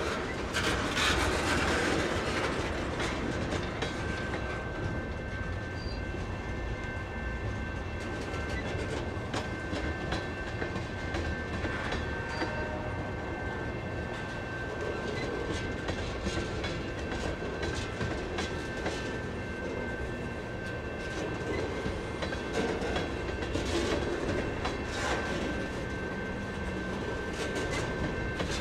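Freight train tank cars rolling past close by: a steady low rumble of steel wheels on rail, with clicks as the wheels cross rail joints.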